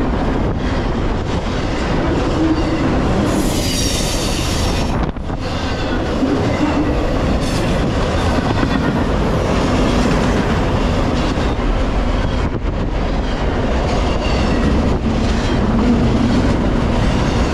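Double-stack intermodal freight cars rolling past at close range, steel wheels rumbling and clacking steadily over the rail joints. Wheel flanges squeal sharply about three to five seconds in, and more faintly again near the end.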